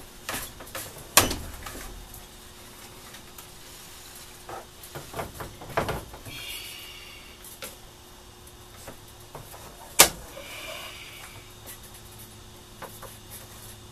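Handling knocks and clatter as spray flotation foam is worked into a PVC float tube, with two sharp knocks, one about a second in and the loudest about ten seconds in. Twice, for under a second, the foam can hisses and sputters.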